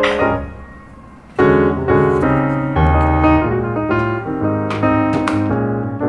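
Background piano music, a melody of short notes over a low accompaniment; it drops away to a faint level about half a second in and comes back abruptly about a second and a half in.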